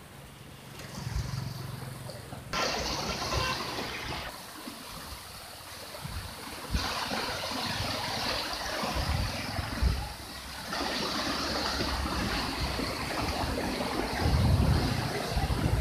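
Fast-moving muddy floodwater rushing and churning past trees, a steady rush of water that comes in suddenly a few seconds in, dips for a while, then returns. Low buffeting on the microphone comes and goes.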